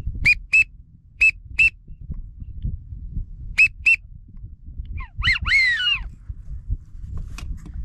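A duck-hunting whistle call blown in three pairs of short, high, clear notes, then a short run of falling, honk-like calls about five seconds in, over a low wind rumble.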